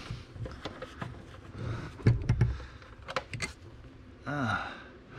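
Scattered knocks and clicks of handling at the car's front seat mounting, the loudest cluster about two seconds in. A short falling hum of a man's voice comes near the end.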